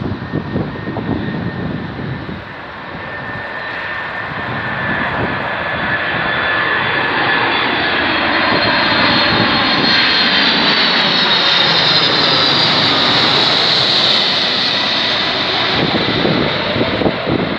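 Boeing 747-400F freighter's four turbofan engines on landing approach, a jet rumble with a high whine that grows steadily louder as the aircraft comes in low overhead, loudest in the second half.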